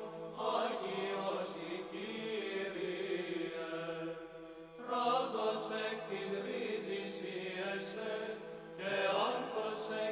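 Byzantine-style Greek Orthodox chant: voices singing a melody in phrases over a steady held low drone note, with new phrases starting about halfway through and near the end.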